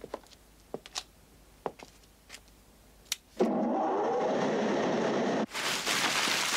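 A few faint scattered clicks, then an engine-like motor sound starts abruptly about three and a half seconds in, runs steadily for about two seconds and cuts off suddenly. A loud, even rushing hiss follows.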